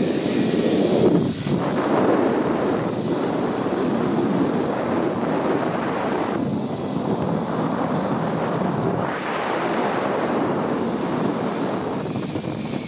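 Steady rush of wind over the microphone of a camera speeding down a zipline, rising and falling a little in strength.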